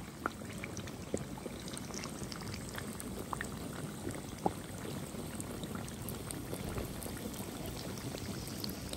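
Keema kachoris deep-frying in a wok of hot oil on medium flame: the oil bubbling and sizzling steadily, with scattered small pops and crackles.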